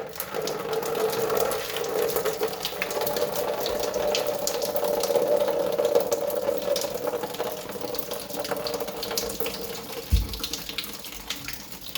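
Water running steadily out of the opened Moen shower valve body as the cartridge comes loose, with small clicks of handling. A single low thump about ten seconds in.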